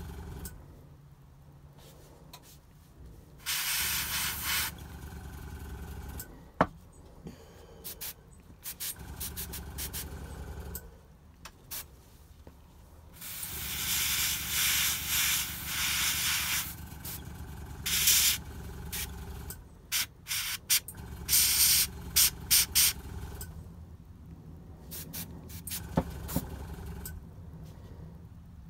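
Airbrush spraying blue paint in separate hissing bursts: a short one about four seconds in, a longer one of about three seconds around the middle, then several quick puffs. A low steady hum runs underneath throughout, from the air compressor.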